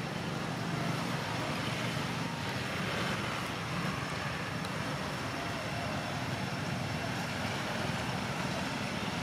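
Steady road-traffic and engine noise: a continuous low rumble with hiss above it.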